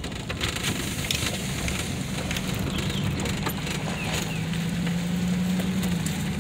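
Vehicle driving heard from inside the cab: a steady low engine hum over tyre and road noise, with scattered light clicks of loose grit crackling under the tyres.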